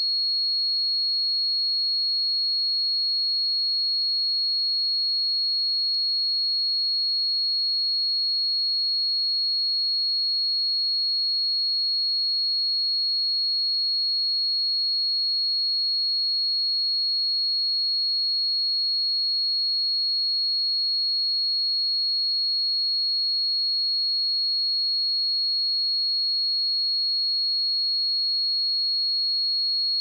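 A steady, high-pitched pure sine tone at 4314 Hz, a speaker test signal held at an unchanging level.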